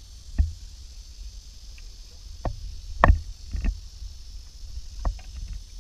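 A skin-on-frame canoe under way: a few scattered knocks and taps on the wooden frame and hull, the loudest about three seconds in, over a low steady rumble.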